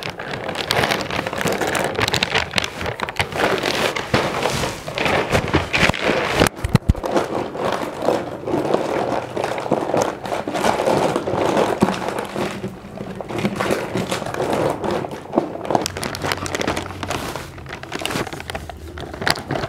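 Plastic snack packets crinkling and crackling continuously as two people press, nuzzle and bite at them with their mouths, trying to tear them open without hands.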